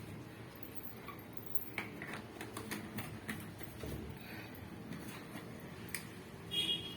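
Household items being set back in place: a scatter of light clicks and knocks, with a short squeak near the end.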